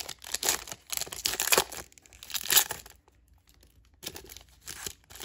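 Foil booster-pack wrapper of a Pokémon trading card pack crinkling and tearing as it is ripped open by hand, in a run of sharp crackles for the first two and a half seconds. After a short pause, softer rustling follows as the cards are pulled out of the torn wrapper.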